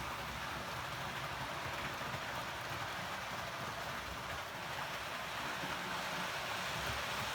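Model D443 diesel locomotive running on track, a steady whirring rumble of its electric motor and wheels on the rails.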